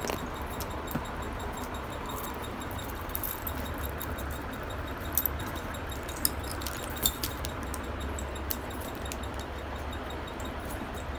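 Scattered light metallic clinks and jingles from small metal pieces being handled by a baby, heaviest in the middle of the stretch, over a steady low hum.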